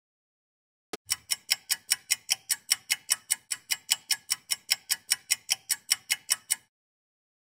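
Clock-style ticking sound effect: sharp, even ticks about five a second, starting about a second in and stopping suddenly after about six seconds.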